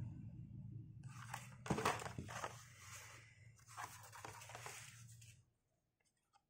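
Hot Wheels blister cards, card and clear plastic, being handled and swapped, crinkling and clicking in two spells about a second and about four seconds in. A low steady hum runs underneath and stops about five and a half seconds in.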